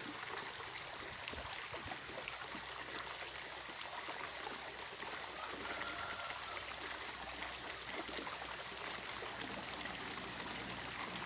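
Small mountain stream running steadily over rocks, a constant even rush of water.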